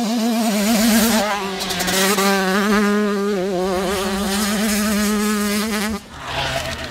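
Husqvarna TC85 85cc two-stroke dirt bike engine ridden hard, its pitch wavering up and down with the throttle. The sound drops away suddenly about six seconds in, then another burst of engine comes in near the end.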